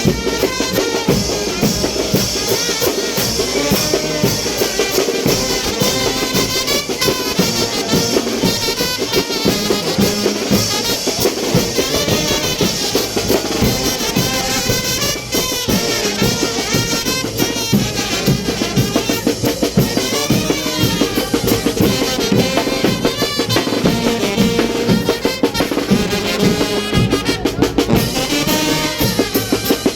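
A Mexican brass band (banda de viento) plays a chinelo brinco son without a break: trumpets and trombones carry the tune over a steady, driving beat of bass drum and snare.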